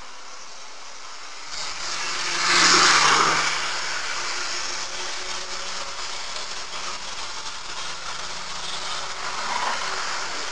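H0-scale model freight train rolling past on its track. It is loudest about two to three seconds in as the pair of F45 locomotive models goes by, then keeps up a steady rolling rumble as the freight cars pass. The rumble swells a little again as the caboose goes by near the end.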